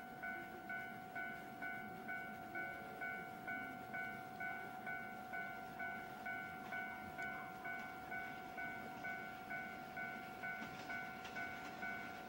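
Railway level-crossing warning bell ringing steadily, about two strikes a second, which signals that a train is approaching. The faint noise of the approaching train joins in near the end.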